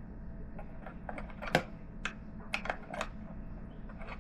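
Light clicks and taps of hard 3D-printed plastic parts being handled and fitted against each other, about nine irregular clicks with the sharpest about a second and a half in, over a steady low hum.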